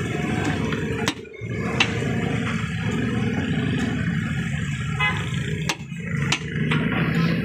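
Metal scraper-chopper striking down through fried chicken onto a steel tawa griddle: several sharp metallic clacks at uneven spacing, chopping the pieces small. A steady low rumble runs underneath.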